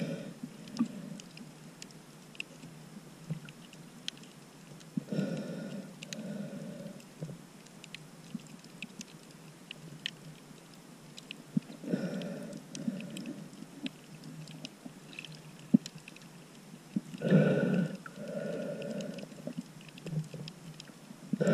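Muffled breathing of a snorkeler through the snorkel, heard with the camera underwater: a two-part breath roughly every five to six seconds. Faint sharp clicks are scattered between the breaths.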